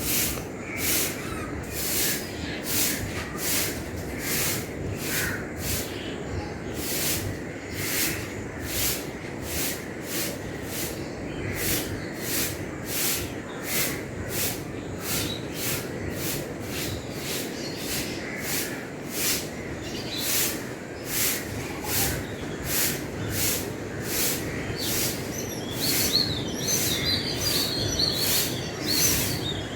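Broom sweeping the ground in even, regular strokes, about one and a half swishes a second. Birds chirp in the background, more of them near the end.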